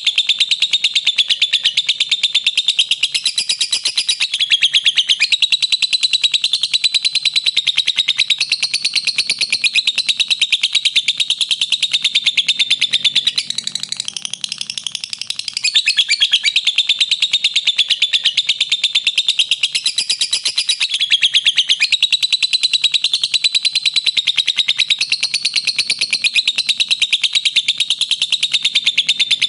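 Pet lovebirds chattering, a rapid continuous stream of high, shrill chirps and squeaks with a brief lull about halfway through.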